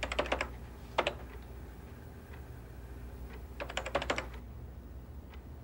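Typing on a computer keyboard: a quick run of keystrokes at the start, a single keypress about a second in, another quick run just before four seconds, then a few faint taps, over a low steady hum.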